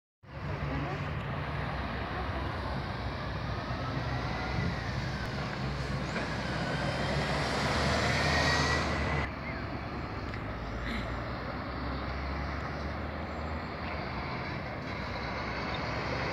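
Scania diesel coaches running past in road traffic: a steady low engine drone under tyre and traffic noise. It swells as a coach passes close and drops suddenly about nine seconds in.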